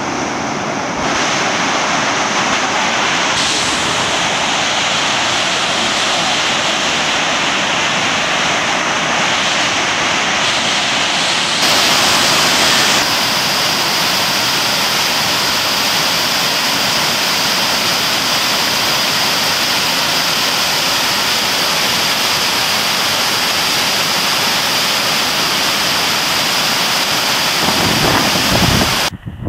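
Rushing whitewater at Huka Falls on the Waikato River: a loud, steady roar of churning water. It shifts abruptly in tone a few times, and low gusts of wind on the microphone come in near the end.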